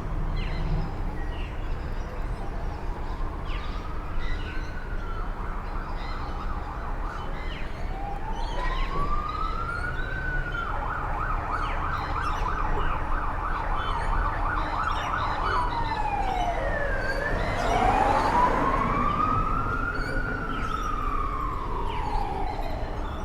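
Emergency vehicle siren sounding on the street, switching between a slow rising-and-falling wail and a fast yelp. A steady low traffic rumble runs underneath.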